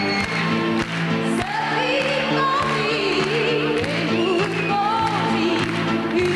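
Live pop song: a singing voice carries a melody over band accompaniment with a steady beat.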